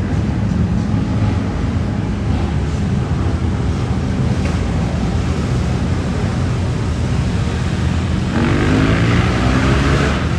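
Loud motorcycle engines running with a steady low rumble; about eight seconds in, one revs up with rising pitch and grows louder.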